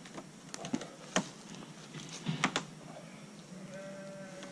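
Sisal rope lashing being hauled tight around wooden poles, giving a few sharp clicks and creaks as the rope bites and slips under tension, and a short steady squeak near the end.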